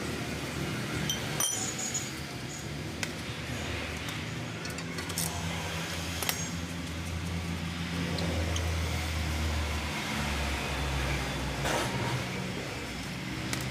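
Metal hand tools clinking and tapping on car suspension parts in scattered knocks, over a steady low hum.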